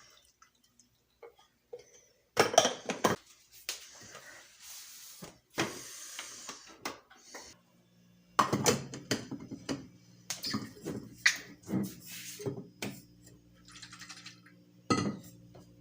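Kitchen handling noises: clinks and knocks of dishes or utensils, with a short hissing stretch like running or pouring water. A low steady hum starts about halfway through.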